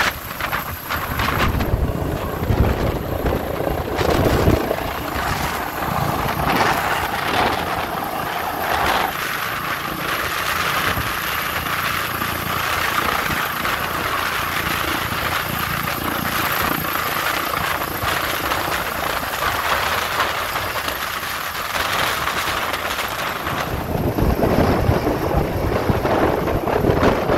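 Police helicopter hovering close overhead during a hoist rescue: a steady rotor and turbine noise, louder and heavier in the low end for the last few seconds.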